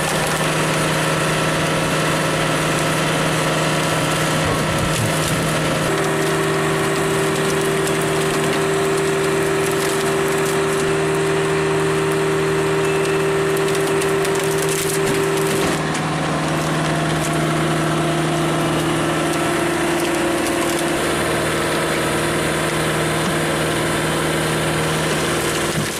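Bell Super Splitter's 80 horsepower Cat turbo diesel engine running steadily under load while logs are split, with wood cracking. It is a constant droning hum whose higher tone drops slightly in pitch about sixteen seconds in.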